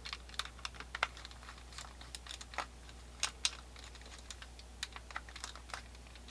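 Light, irregular metal clicks and taps of a screwdriver working the back-strap screws of an 1860 Colt Army percussion revolver, a few clicks a second.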